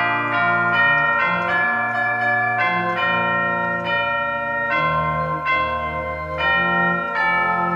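Church organ playing a hymn in sustained chords that change every half second to a second.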